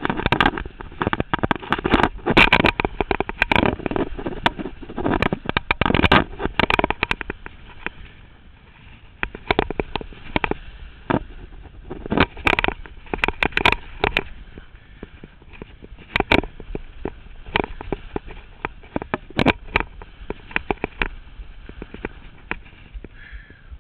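Skis scraping and chattering over firm, chopped-up snow during a downhill run, with wind noise on the microphone. The knocks and scrapes come thick and fast for the first several seconds, then grow sparser.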